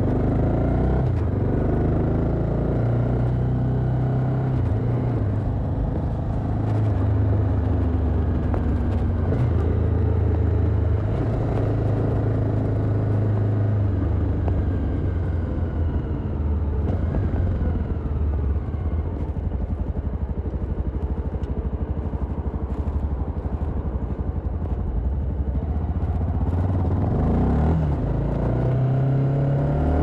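Honda XRE 300 Rally's single-cylinder engine with its stock exhaust, running under way, its pitch rising and falling with the throttle and a climb in revs near the end.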